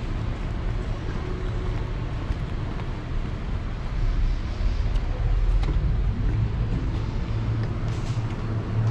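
Steady low rumble of outdoor street noise, like traffic, picked up while walking with the camera.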